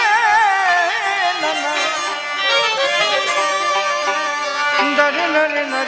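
Bengali folk music from an accompanying ensemble, with a violin playing a wavering melody.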